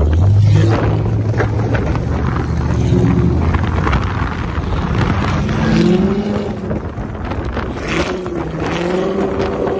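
Sports car engines running hard as the cars drift, the revs rising and falling several times, over a steady rushing noise.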